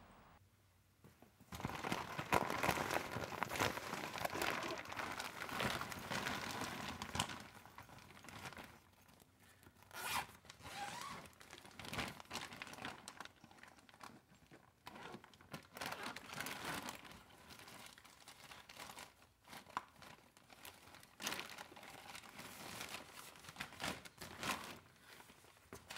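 Clear plastic bag crinkling and rustling as hands open and handle it. There is a long, dense stretch of crinkling at first, then shorter, irregular bursts.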